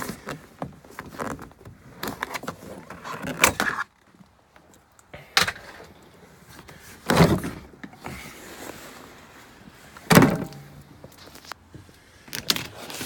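Clicks, rattles and knocks from working on a pickup truck's interior door panel, plastic trim and tools being handled, with four louder sharp knocks spread through.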